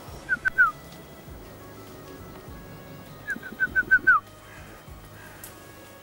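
A bird chirping in two short runs of quick falling notes, three and then six, the last note of each run longer and sliding lower, over soft background music.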